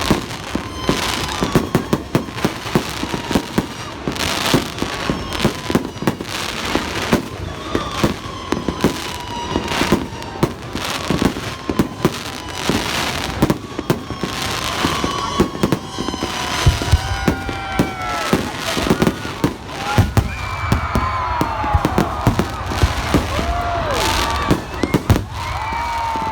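Fireworks display: a dense, continuous run of bangs and crackling bursts, with high whistling tones sliding through it and deeper booms in the later part.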